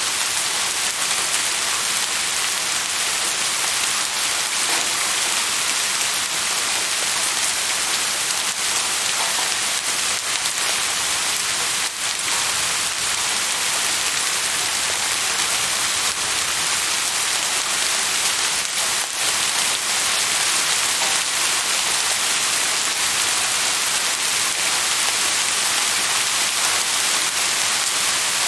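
Steady rain falling, an even hiss with scattered drops ticking on surfaces.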